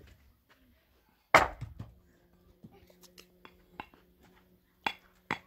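Sharp knocks of dry wood being broken and handled at a small metal brazier. There is one loud knock about a second in, scattered small clicks, and crisp knocks near the end, with a faint steady hum underneath.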